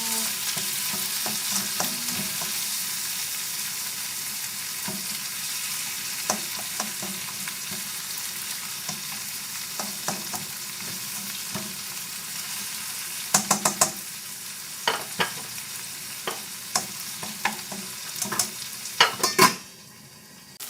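Chopped tomato sautéing in hot oil with garlic, onion and ginger, sizzling steadily in a frying pan, being cooked down until soft. From about two-thirds through, a cooking utensil stirring against the pan adds a run of sharp clicks and knocks, and near the end the sizzle drops away suddenly.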